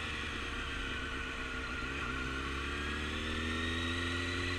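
Motorcycle engine running at low speed, its pitch easing down for the first couple of seconds and then rising steadily as the bike accelerates.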